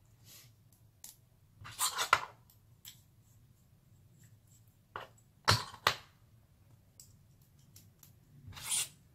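Small clicks, taps and short scrapes of an Xray X12 rear pod's carbon and aluminium parts being handled and set down on a board, with a hex driver turning small aluminium screws in loosely. The louder scrapes and knocks come a couple of seconds in, around the middle, and near the end.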